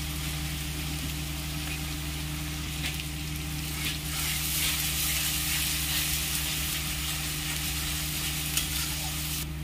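Ginger-garlic-onion paste sizzling in hot oil in an iron kadhai, stirred with a metal spatula. The sizzle grows louder about four seconds in, once the stirring spreads the paste through the oil.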